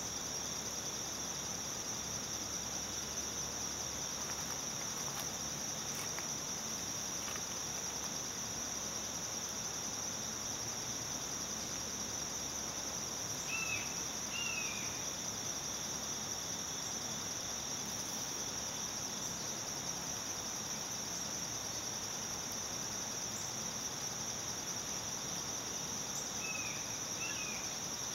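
Steady, high-pitched insect chorus that never lets up. A few short chirps come about halfway through and again near the end.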